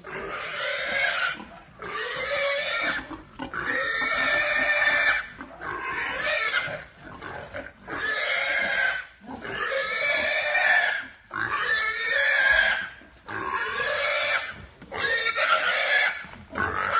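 Domestic pig squealing loudly and repeatedly, shrill drawn-out squeals of about a second each with short breaks between, around ten in a row.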